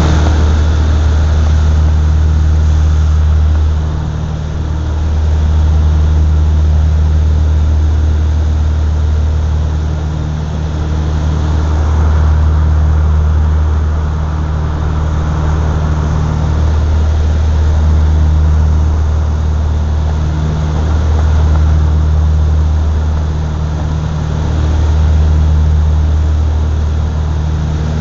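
Cabin drone of a twin-engine propeller aircraft in flight: a steady low engine and propeller hum whose loudness swells and fades every few seconds, the beat of the two propellers turning slightly out of sync.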